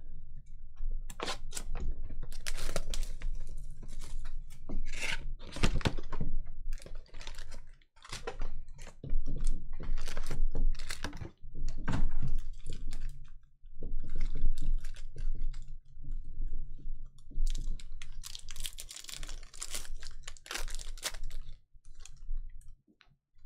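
Packaging of a sealed trading-card hobby box being torn and opened, then a stack of foil card packs crinkling as they are handled and one is torn open. The sound is a rapid, uneven run of crackles and rustles with a few short pauses.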